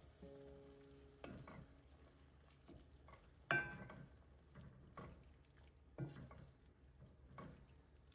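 Wooden spatula stirring chopped onion, tomato and spices in a stainless steel pan, knocking and scraping against the pan's side several times, the loudest knock about three and a half seconds in, over a faint sizzle of the frying mixture.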